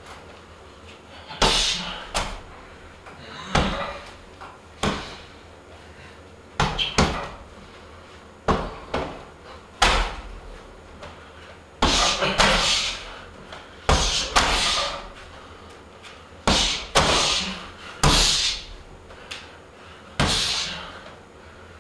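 Punches and kicks striking a hanging heavy punching bag, a sharp hit every second or two in irregular combinations, some landing in quick pairs.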